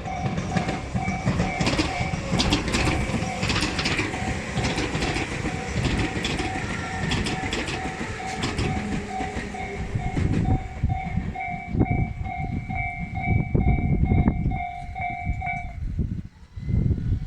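Tobu Isesaki Line train passing, with wheels clicking over rail joints, under a level-crossing bell ringing in steady repeated dings that stops near the end. Strong wind buffets the microphone.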